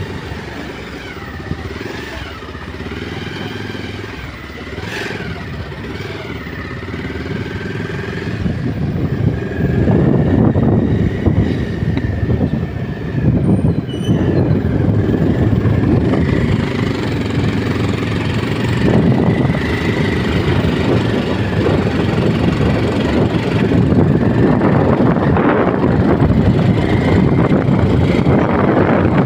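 Small motorbike engine running while riding along a road, with wind rumbling on the microphone; the rumble grows louder about nine seconds in.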